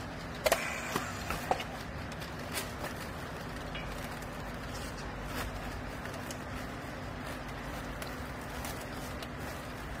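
Steady machine hum with a faint steady tone, with a cluster of sharp clicks and knocks about half a second to a second and a half in as a handheld strapping tool and plastic strapping are handled on a baled bundle of clothing.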